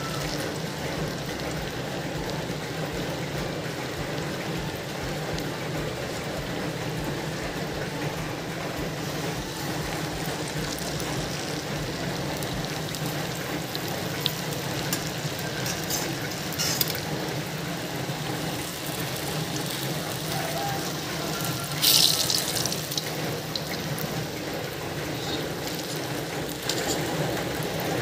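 Cireng frying in hot oil in an aluminium wok: a steady sizzle, with a few short clicks and pops and one louder sharp burst about 22 seconds in.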